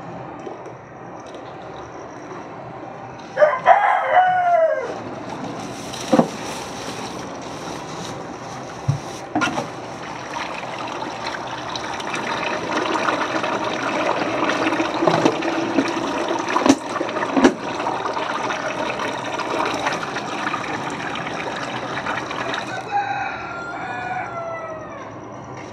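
A rooster crows loudly a few seconds in. Then white emulsion paint runs from a tank's outlet valve into a plastic-lined bucket, a steady rushing pour with a few sharp knocks, which stops about three seconds before the end, followed by a shorter crow-like call.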